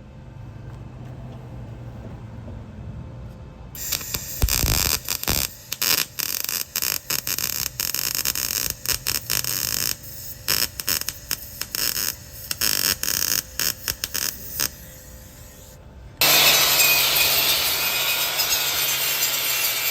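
Metalwork on a cracked exhaust manifold: a harsh scraping tool noise that starts and stops in many short bursts for about ten seconds, then runs steadily for several seconds near the end. A low hum sits under the opening seconds.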